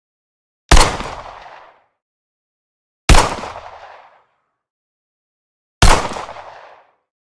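Glock 17 9mm pistol firing three single shots about two and a half seconds apart. Each shot is a sharp crack with a short echoing tail that dies away within about a second.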